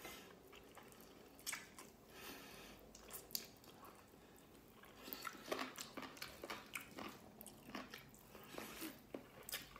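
A person chewing mouthfuls of rice and chicken adobo eaten by hand: quiet, wet mouth clicks and chewing, growing denser about halfway through.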